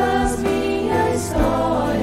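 Background music: a slow Christian song, with voices singing over sustained bass notes.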